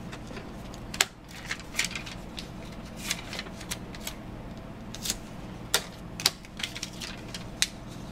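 Hands peeling printed adhesive labels off their backing and pressing them onto plant tags on a desk: irregular light clicks, taps and rustles, the sharpest about a second in and near six seconds, over a low steady hum.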